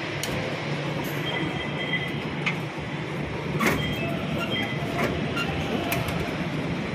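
Busy light-rail station ambience: a steady low rumble of trains and machinery, with short high beeps and a few sharp clicks.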